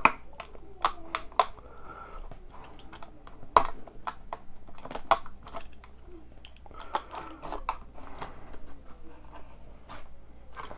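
A Hot Wheels blister pack being opened by hand: irregular sharp clicks and crackles of the plastic blister and cardboard card being pried apart, with a few louder snaps.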